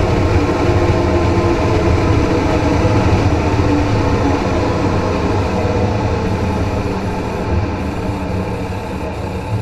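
Steady road noise from beneath a Dodge Ram pickup driving at speed: tyre roar and a low drivetrain hum, easing slightly in the second half.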